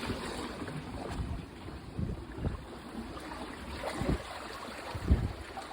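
Wind rumbling on the microphone over sea water lapping, with a few low bumps about two, four and five seconds in.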